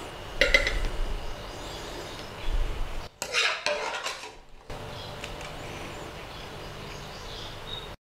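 Metal serving spoon scraping and clinking against a wok and a stoneware plate as stir-fried fish is dished out, in a few short clattering bursts in the first half.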